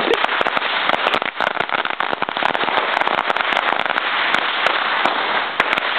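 Homemade cluster of topless bottle rockets and a magnum flasher firework burning together: a continuous loud hiss with many sharp crackles and pops throughout.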